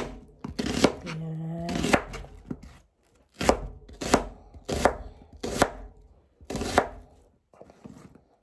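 Kitchen knife slicing through an onion and knocking on a plastic cutting board, one cut about every second.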